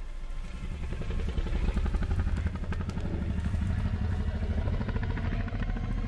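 Deep, rattling growl of a large movie dinosaur, the Indominus rex. It swells up over about the first second and then holds, rumbling low and steady throughout.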